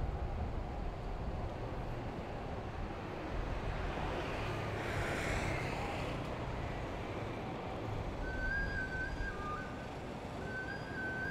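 City street traffic rumble heard from a moving bicycle, with a vehicle passing about halfway through. From about eight seconds in, an electronic signal sounds a held tone stepping down to a lower one, twice.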